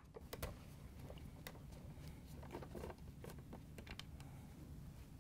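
Faint, irregular clicks and scrapes of a hand nut driver turning out the screws that hold a refrigerator dispenser's frame, over a low steady hum.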